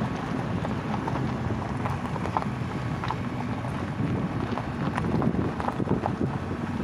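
Car driving on a rough gravel road, heard from inside the cabin: a steady rumble of tyres and engine with scattered small clicks and knocks of loose stones under the wheels.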